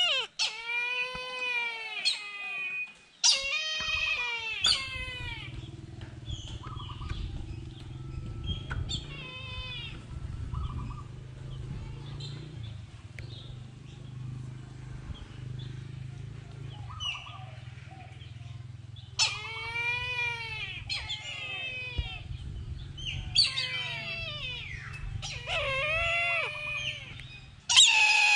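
Repeated drawn-out animal cries, each rising and falling in pitch, in a cluster at the start and again in the last ten seconds, over a steady low hum through the middle.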